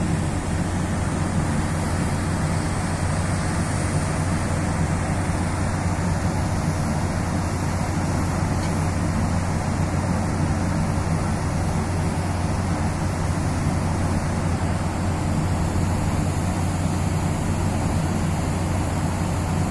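Forsea car ferry's engines humming steadily, under a constant rushing noise, heard from the open deck.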